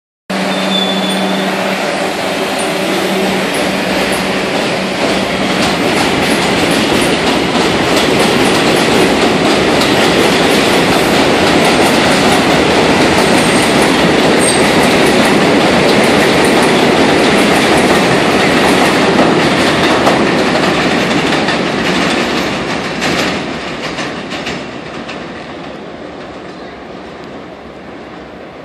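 R62 subway train running on elevated track, its wheels clattering and its motors humming steadily for the first few seconds. It gets loudest in the middle, then fades over the last several seconds as it moves away.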